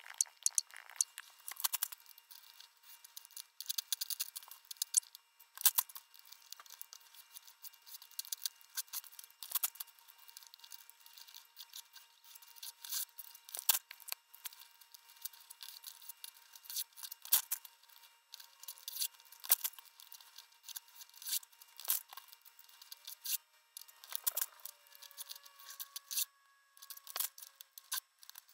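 Paper being ripped and rustled: sheets torn out of a spiral graph-paper notebook and their side strips torn off, in repeated crisp rips and crackles.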